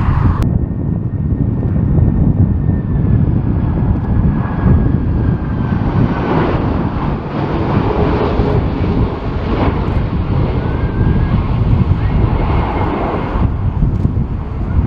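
Jet airliner engines running as the aircraft passes, with a thin high whine that falls slightly in pitch over the first several seconds, over a dense low rumble from strong wind on the microphone.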